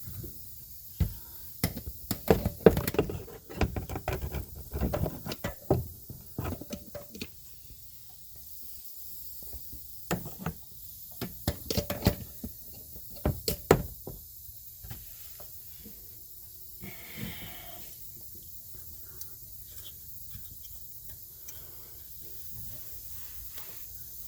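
Irregular clicks and knocks of hands and tools working on a car's rear hub area, in two busy runs separated by a pause, then quieter with a brief rustle.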